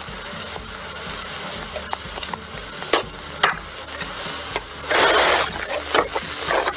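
Scattered light knocks and taps of spoons against a stainless steel pot of cooking mince over a steady hiss. About five seconds in there is a short scrape, and quicker knocks follow as a wooden spoon starts stirring the meat.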